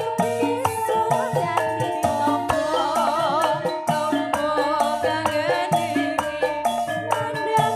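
Campursari band playing live: a pitched lead melody with a wavering line over steady drum and percussion strokes and a bass line.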